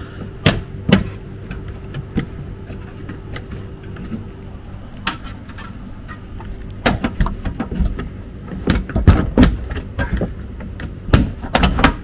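Plastic scuttle panel below a van's windscreen being wiggled and pried off its clips: irregular sharp plastic clicks, knocks and rattles as the clips strain and the panel shifts, busiest in the second half. Not a good-sounding noise, though prying the panel loose this way is expected.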